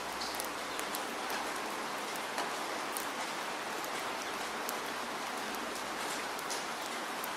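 Steady rain falling on wet ground: an even hiss with many separate drop ticks scattered through it.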